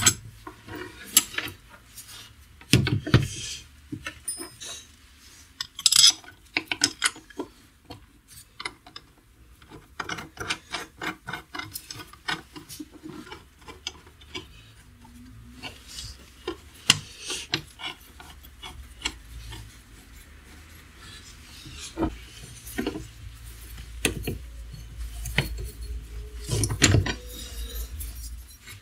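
Hand-work on a steel bench mount for an angle grinder: scattered metallic clicks, clinks and knocks with scraping and rubbing as the grinder is set into the clamp and the bolts are worked. The grinder is not running.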